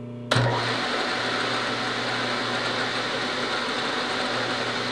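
Bridgeport milling machine running, with a small drill bit boring a shallow hole into a wooden gun stock. The steady machine noise starts abruptly about a third of a second in.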